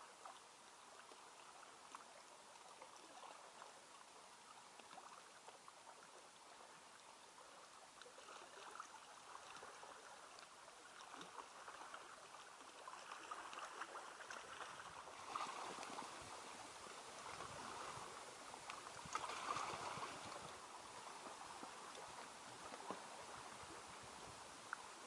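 Lake water lapping faintly against ice-covered shoreline rocks: a soft, irregular splashing and trickling that grows a little louder about halfway through.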